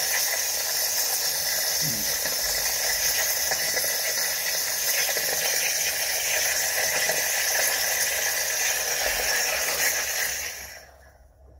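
Steam wand of a Philips Saeco Poemia espresso machine hissing steadily as it vents steam while descaling solution is flushed through it. The hiss falls away sharply about ten seconds in as the steam is shut off.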